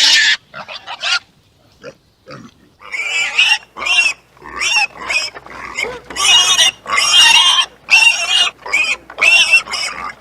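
Pig squealing over and over in short, loud, harsh squeals, about a dozen of them in quick succession from about three seconds in, after a few shorter sounds at the start.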